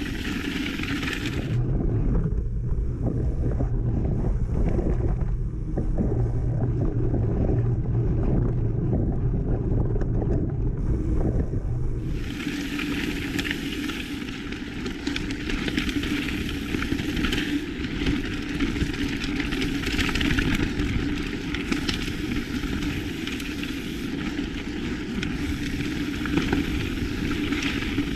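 Mountain bike riding down a dirt trail, heard through the wind buffeting an action-camera microphone: tyre roar and bike rattles under a steady rush of wind. For roughly the first ten seconds the sound is muffled to a low rumble, then it opens out into a brighter hiss with scattered clicks.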